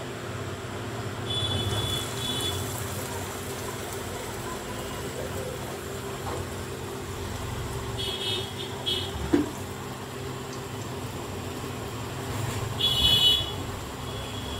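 Jute-leaf fritters deep-frying in a wok of hot oil, sizzling steadily over a low hum. Three short high-pitched tones sound about 1.5, 8 and 13 seconds in, the last the loudest, with a single click just after the second.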